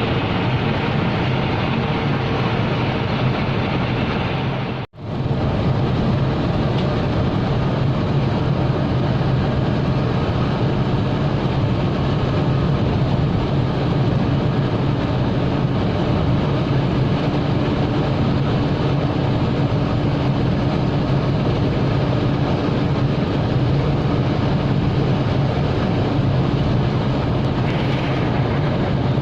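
Intercity bus running at a steady speed, with an even engine hum and road noise. The sound drops out for an instant about five seconds in.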